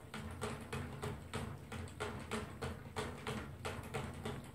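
Toy poodle drinking from a nozzle-type water bottle hung on its crate: a steady run of licks at the spout, about three clicks a second.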